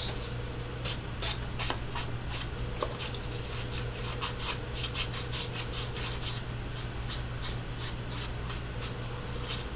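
A hand-held inking tool rubbed and scraped around the edges of a small punched cardstock circle in quick repeated strokes, a few a second, as the paper edges are inked to a distressed look.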